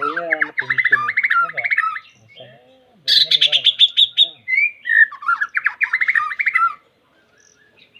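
White-rumped shama singing a challenge song meant to call out a rival: fast rattling trills and chatter with a few slurred whistles, in two long bursts with a short pause about two seconds in.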